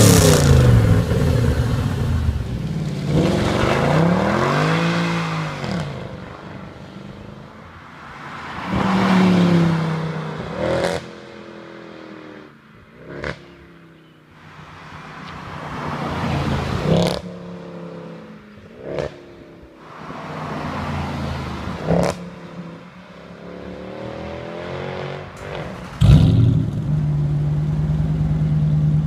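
V8 performance-car exhausts in turn: an Audi RS4 revving up and back down, then a Eurocharged-tuned Mercedes-Benz C63 AMG revving repeatedly with sharp cracks between some of the revs. About three seconds before the end, a straight-piped Dodge Charger R/T's 5.7 Hemi V8 comes in suddenly, running with a loud, steady drone.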